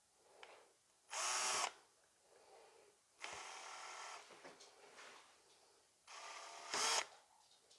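Handheld rotary tool with a pointed diamond burr grinding into quartzite in three short runs: a brief loud one about a second in, a longer quieter one in the middle, and another brief loud one near the end. The burr makes almost no headway in the very hard stone.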